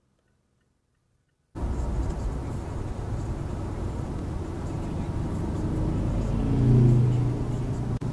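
Near silence for about a second and a half, then steady road and engine noise heard from inside a car travelling at about 80 km/h. A deeper engine hum swells and peaks around seven seconds in as a motorcycle passes close by.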